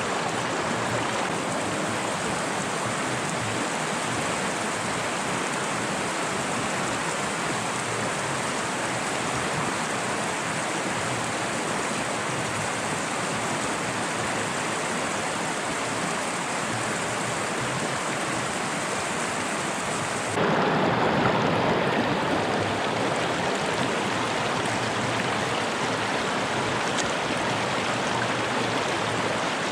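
Fast mountain stream rushing over rocks, a steady dense roar of water. About two-thirds of the way through, it shifts abruptly to a louder, fuller rush with less hiss.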